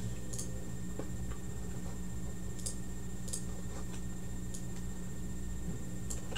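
Faint, scattered clicks of a computer mouse as text is selected on screen, a few spread irregularly, over a steady low hum.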